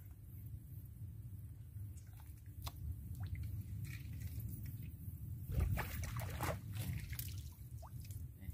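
Water splashing and trickling as a mesh fish keep net is worked in the shallows and lifted out dripping, loudest a little past halfway, over a steady low rumble.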